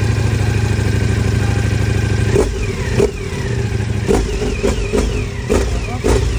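Ducati motorcycle engine idling steadily, then revved in a run of about seven quick throttle blips, each rev dropping straight back toward idle.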